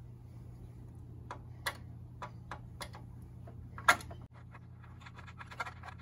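Hand screwdriver driving one-way security screws into a metal gate lock: a series of irregular sharp clicks, the loudest about four seconds in, with a quick cluster near the end.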